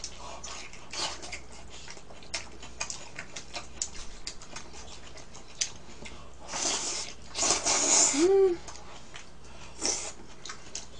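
Eating at a table: small clicks of chopsticks against bowls, and two loud slurps of jjajang noodles a little past halfway. Right after the slurps comes one short squeak that rises and falls.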